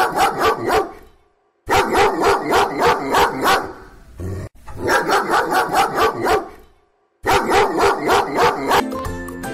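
A dog barking in quick runs of about four barks a second, with short silent gaps between the runs. A music jingle starts near the end.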